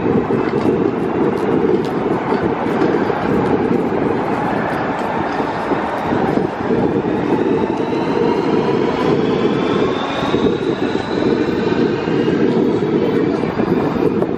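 Lastochka electric multiple-unit train moving slowly over a steady low rumble. A whine from its traction drive rises in pitch over several seconds as the train gathers speed, then fades.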